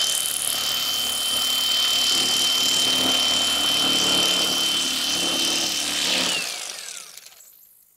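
Electric fillet knife running with a steady high whine as it slices the red meat off a fish fillet. About six seconds in, the whine falls away as the motor spins down.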